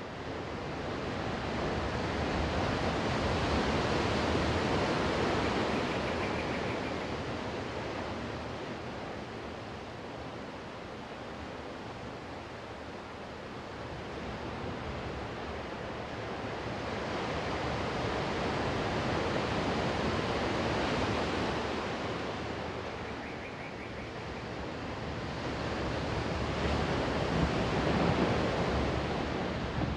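Ocean surf breaking on a sandy beach: a continuous rush of wave noise that swells and ebbs slowly, with three broad surges.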